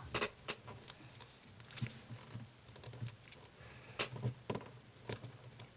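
Square coloured origami paper being folded and creased by hand: scattered faint crinkles and taps of paper against paper and the tabletop, a few at a time.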